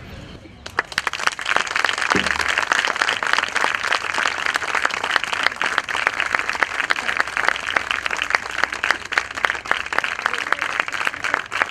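Crowd applauding: dense clapping starts about a second in and keeps up steadily.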